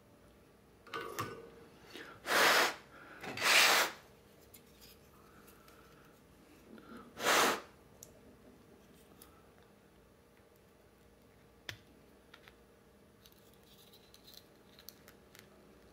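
Three short rasping scrapes of about half a second each, a little after two, three and a half and seven seconds in, followed by a few faint clicks, from hand work on 3D-printed plastic parts.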